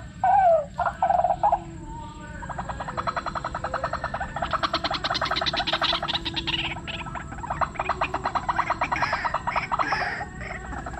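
White-breasted waterhen calls: a few loud, wavering calls that drop in pitch over the first second and a half, then a long, fast run of harsh repeated notes.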